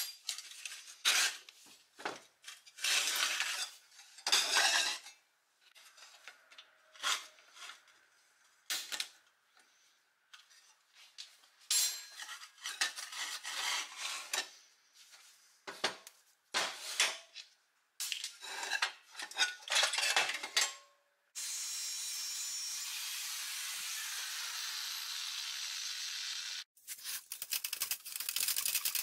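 Rusty 1950s Doepke Heiliner steel toy scraper being taken apart by hand: repeated metal clinks and scrapes as tools and parts knock against the steel body and the bench, with a wheel pulled from its axle. Later, a steady hiss lasts several seconds and then gives way to a rapid run of ticking near the end.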